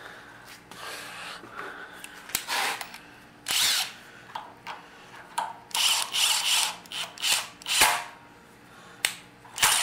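A 24-volt cordless driver running a bolt on a socket in several short bursts, threading it in and out of the freshly tapped hole in a small engine's crankshaft end to test the threads.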